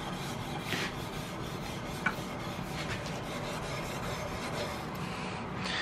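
240-grit sandpaper backed by a file rubbing lengthwise along a flat of an octagonal steel rifle barrel, a steady scratchy rub. It is smoothing out the contrast of the draw-filing marks to leave a duller, even shine before bluing.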